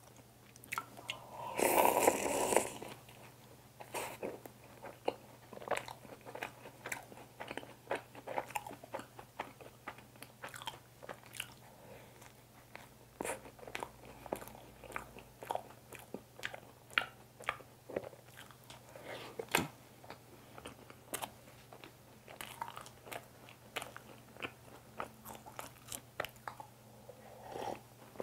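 Close-miked biting and chewing of a cream-filled mocha bun, with many short crunchy, wet mouth clicks from the crisp mocha crust. A louder, noisier burst comes about two seconds in.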